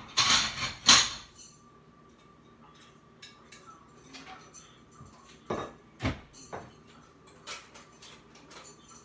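Kitchen utensils and dishes being handled: a loud clattering rustle in the first second or so, then a few separate sharp clinks and knocks about halfway through and again near the end.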